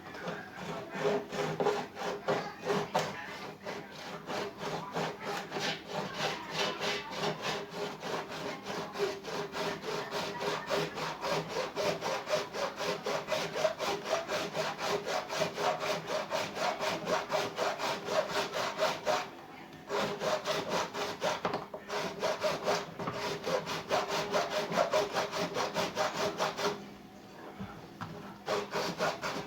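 Hand saw cutting through a washing machine's sealed plastic outer tub to reach the drum bearings, in quick, regular back-and-forth strokes. There are two short breaks, about two-thirds of the way through and near the end.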